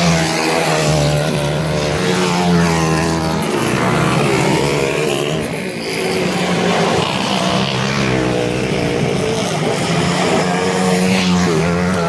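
Motocross dirt bike engines revving hard on a dirt race track, their pitch repeatedly climbing and dropping as the riders accelerate and shift.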